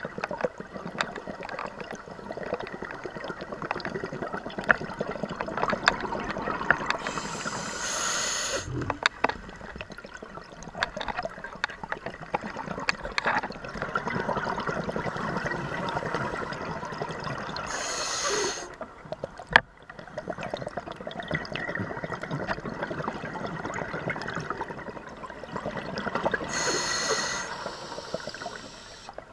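A scuba diver breathing through a regulator underwater: three breath cycles about nine or ten seconds apart, each marked by a short, bright rush of hiss, over a steady bubbling, crackling wash of water noise.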